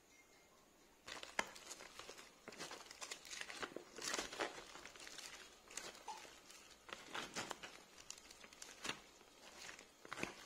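Iceberg lettuce salad being tossed in a plastic bowl with a plastic salad fork: irregular crisp rustling and crinkling of the leaves with sharp clicks, starting about a second in.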